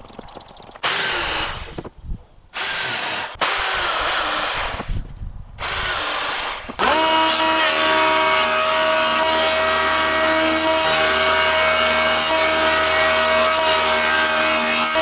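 Angle grinder with a brush wheel scouring wood in several short loud bursts. From about seven seconds in, a jointer-planer runs steadily with a constant hum and whine as a half-round piece of log is fed across it.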